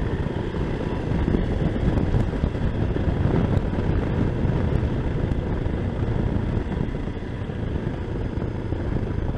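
Motorcycle on the move at steady road speed: engine running under a heavy rush of wind and road noise on the rider's microphone.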